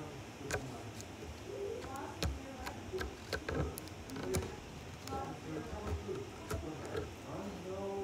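Fingers poking and pressing slime close to the microphone, giving irregular sharp clicks and pops, roughly one or two a second.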